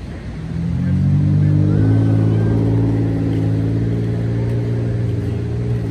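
A motor vehicle's engine running nearby. It comes in about half a second in, rises a little in pitch over the next second, then holds a steady low hum as the loudest sound.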